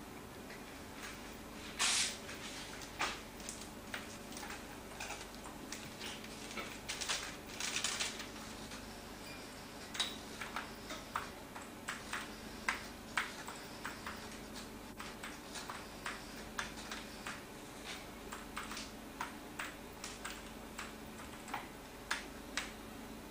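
Keystrokes on a computer terminal keyboard, irregular clicks about two or three a second, with a few bursts of paper being handled in the first eight seconds. A steady low hum runs underneath.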